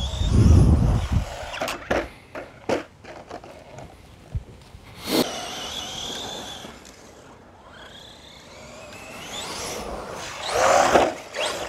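Team Associated Rival MT10 RC monster truck's brushless electric motor whining, rising and falling in pitch as the truck speeds up and slows down, with a few sharp knocks along the way. There is a low rumble in the first second and a louder burst of noise near the end.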